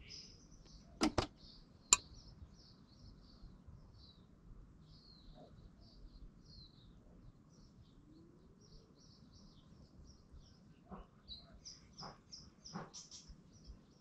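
Small birds chirping steadily in the background, in short high calls. Two sharp clicks come close together about a second in, a sharper, louder one a moment later, and a few softer clicks near the end.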